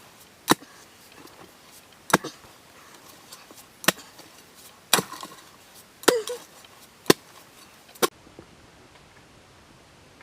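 A blade chopping: seven sharp strikes at uneven intervals of one to two seconds.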